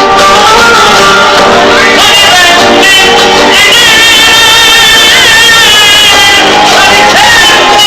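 Live music: a singer holding wavering, ornamented sung lines over instrumental backing. The recording is pushed to the very top of its loudness range throughout, which makes it sound overdriven and harsh.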